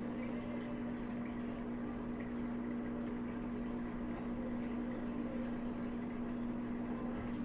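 Aquarium filter running in a turtle tank: steady water bubbling and trickling over a constant motor hum.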